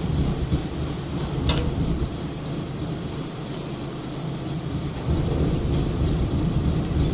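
Steady low rumble of machinery in the workshop, easing off for a second or two in the middle, with one sharp metallic click about one and a half seconds in.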